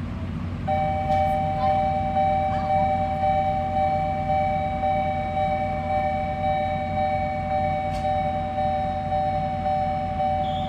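Japanese railway level-crossing alarm starting up about a second in and then sounding steadily, a two-tone electronic bell pulsing in a regular beat a little faster than once a second, the warning that a train is approaching.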